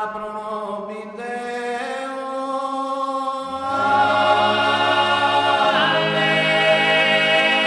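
Sardinian cuncordu: male voices sing a Latin sacred chant a cappella in close harmony, holding long notes. About three and a half seconds in, a low bass voice enters and the chord swells fuller and louder.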